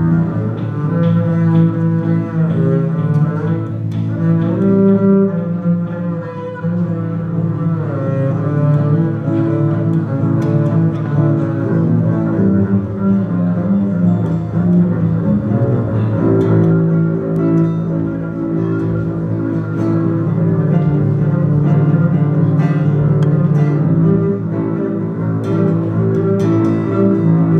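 A double bass played with a bow, sustaining long notes over a strummed acoustic guitar.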